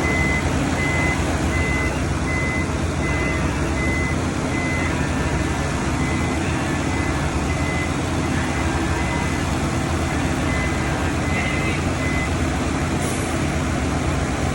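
Truck-mounted road vacuum machine running with a loud, steady drone, while a high warning alarm beeps over and over at an even pace, stopping about twelve seconds in.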